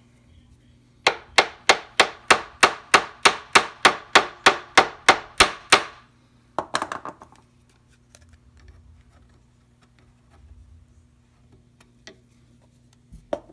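A hammer tapping a wooden chopstick into a glued, stripped screw hole: about sixteen steady, even strikes, roughly three a second, for about five seconds, then a short clatter of quick knocks.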